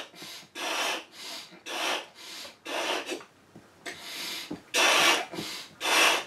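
A man blowing up a large latex balloon by mouth: a run of quick, hard breaths, drawing air in and puffing it into the balloon, about two a second, with a short pause a little past the middle.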